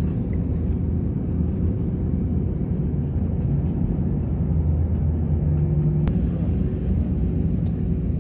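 Steady low rumble of an Airbus A320-family airliner's jet engines and airflow heard from inside the cabin while the plane taxis, with a faint steady hum over it.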